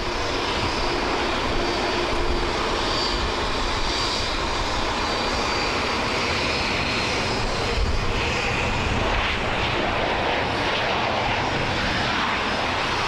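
Lufthansa Boeing 737's twin jet engines running steadily as the airliner touches down and rolls out along the runway, a dense, even engine noise with a faint high whine on top.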